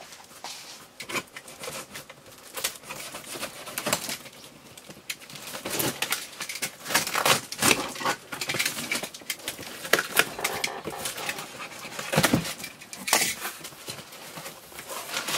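Utility knife slicing through packing tape and plastic stretch wrap on a cardboard box, with a run of scratchy tearing and crinkling strokes. Near the end the cardboard flaps are pulled open with rustling and scraping.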